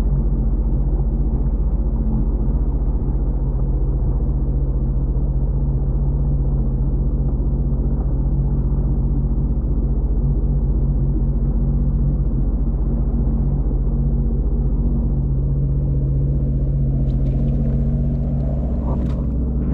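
Sea-Doo jet ski engine running steadily at low speed, a low, even drone heard from on board.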